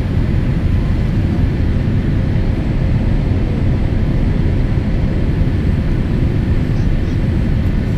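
Steady low rumble of a Boeing 787-8's GE GEnx engines and the rushing airflow, heard inside the cabin during descent, with a faint steady whine running through it.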